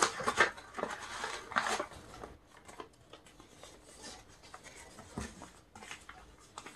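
A sheet of colored origami paper rustling and crinkling as it is folded and creased by hand, louder in the first two seconds, then fainter.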